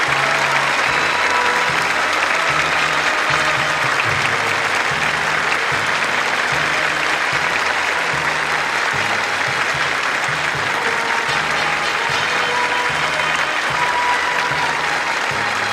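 A large crowd applauding steadily, with music and its changing low bass notes playing underneath.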